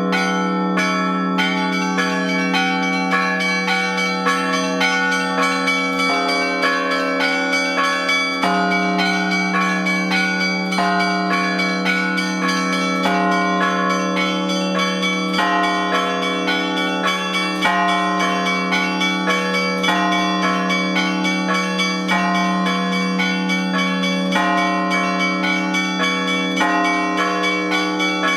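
A full set of Russian Orthodox church bells rung together by one ringer. Small bells strike quickly, several times a second, over low bells that keep sounding beneath them without a break.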